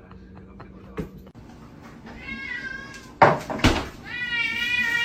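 A domestic cat meowing: a short wavering meow about two seconds in, then two loud sharp noisy bursts just after three seconds, and a long, steady, high cry starting near four seconds.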